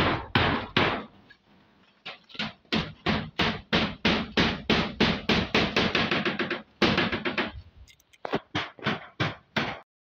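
Hammer blows on a roof of timber trusses and corrugated iron sheets, struck at about three or four a second, with a pause of about a second just after the start and a shorter break near the end.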